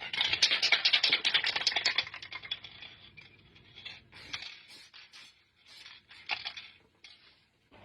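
Paper being handled and crinkled, a dense scratchy crackle for about the first two seconds, then shorter scattered rustles.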